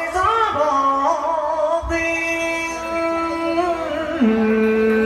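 Male voice singing a sliding, ornamented cải lương line over instrumental accompaniment, then giving way about two seconds in to long steady held notes.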